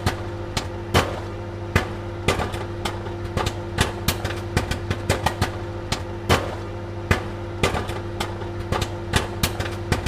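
Popcorn kernels popping at an irregular rate of a few pops a second, each a sharp crack, over a steady low hum.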